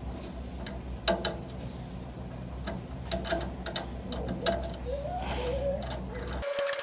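Scattered metallic clicks and clinks of a hand wrench working the clamp bolt on a jeep's tie rod, the front-wheel toe being adjusted by hand, over a low steady hum. A brief rising whine sounds about five seconds in.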